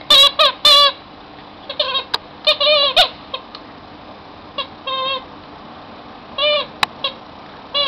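A series of short high-pitched squeaks, each with a slight bend in pitch, coming in quick clusters of two or three with pauses between, and a few sharp clicks among them.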